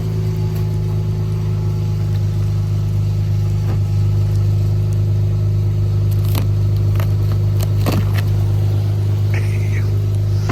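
Dodge Charger GT's 3.6-litre V6 idling steadily shortly after a cold start, with a few light clicks in the second half.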